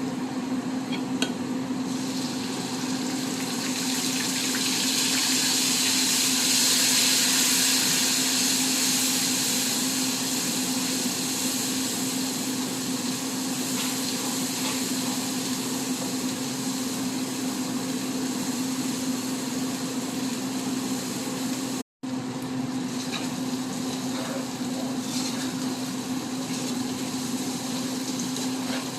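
Curry paste and spices sizzling in hot oil in a cooking pot: a steady frying hiss that swells a few seconds in and then eases, over a constant low hum. The sound breaks off for an instant about three-quarters of the way through.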